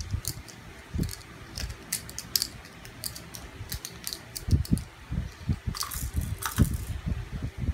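Plastic baby toys clicking and rattling in short bursts, with a louder rattle about six seconds in, and soft low thumps.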